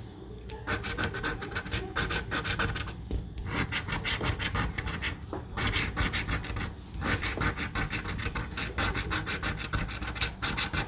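Scratch-off lottery ticket being scratched: quick rasping strokes across the card in runs broken by brief pauses.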